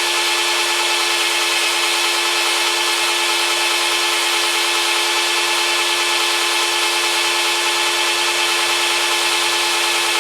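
Electric drill running at a steady speed, its bit grinding into a stripped metal bolt to drill it out: a steady motor whine under a loud grinding hiss.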